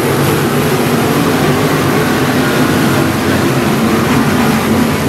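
A field of 305 sprint cars' V8 engines running hard at racing speed around a dirt oval, several engines blending into one steady, loud drone.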